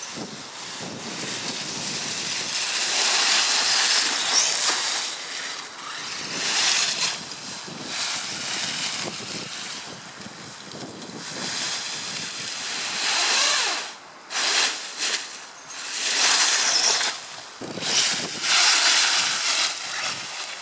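Dry fallen leaves rustling and crunching in repeated surges as a small RC monster truck ploughs through them, with wind noise on the microphone.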